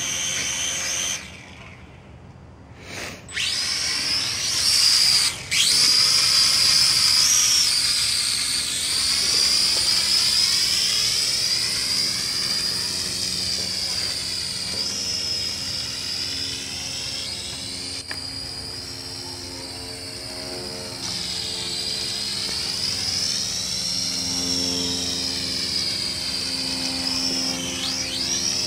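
Small toy drone's motors and propellers whining. It spins up, cuts out about a second in, and starts again in short spurts around three to five seconds. Then it runs steadily in flight, the pitch of the whine rising and falling as it is flown.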